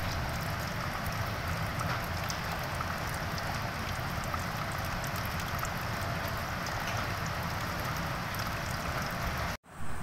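Heavy rain falling steadily on wet ground and a metal wire-mesh grate: a dense, even hiss sprinkled with countless small drop ticks. The sound drops out for an instant near the end at an edit.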